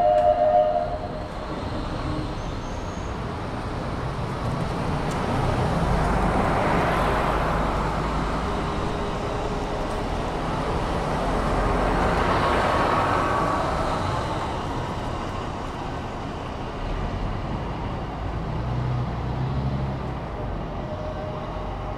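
Road traffic on a city street: two vehicles pass one after the other, each swelling up and fading away, the first about six seconds in and the second about twelve seconds in, over a steady background of traffic noise.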